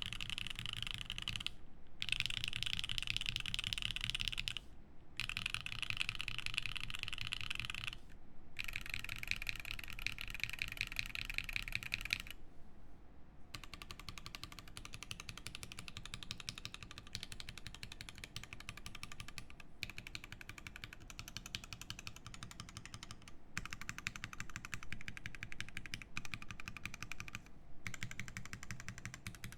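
Fast typing on a Tsukuyomi mechanical keyboard with lubed Alpaca linear switches, a carbon fiber plate and GMK keycaps: a dense stream of keystroke clacks, broken by a few brief pauses.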